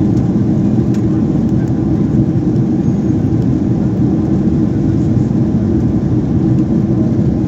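Jet airliner cabin noise in cruise: a steady, loud, low rushing of engines and airflow heard from a window seat over the wing.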